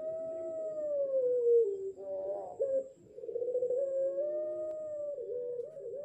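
Young puter pelung, a ring-necked dove breed, giving its long drawn-out howling coo, wolf-like. There are two long coos that each rise and fall slowly, then a run of short broken notes near the end. The bird is about six months old and still learning its call.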